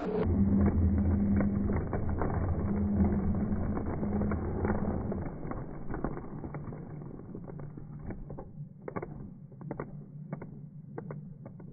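Model train running slowly past, its motor humming steadily with scattered clicks from the wheels on the track. The hum weakens about five seconds in.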